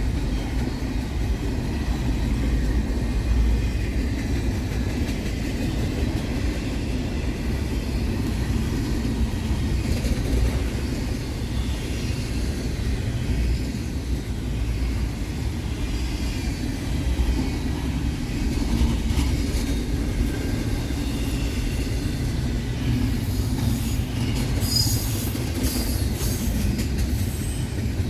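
Intermodal freight train cars rolling slowly past, a steady rumble of wheels on rail. A brief high wheel squeal comes near the end.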